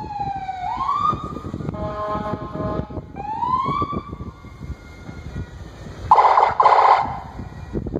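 Police SUV siren giving short rising and falling whoops, mixed with horn blasts; two loud horn blasts just after six seconds in are the loudest sound.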